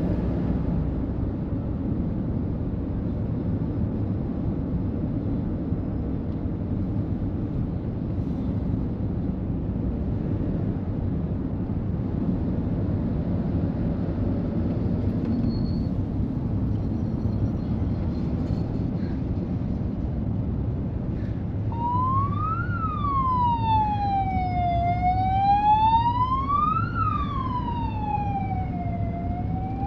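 Steady rumble of road traffic, then an emergency-vehicle siren starts about three-quarters of the way through, wailing slowly up and down.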